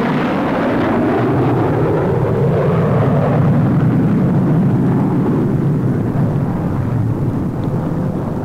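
Vickers Valiant jet bomber making a low flypast, its four Rolls-Royce Avon jet engines giving a deep, continuous roar that swells to a peak about three to four seconds in and eases slightly toward the end.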